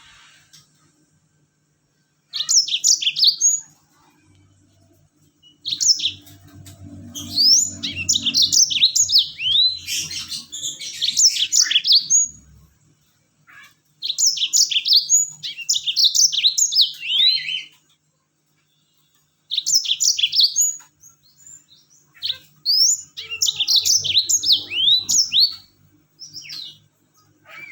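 Yellow-fronted canary singing a fast 'rol tembak' song: quick high chirps and trills in bursts of one to several seconds, with short pauses between.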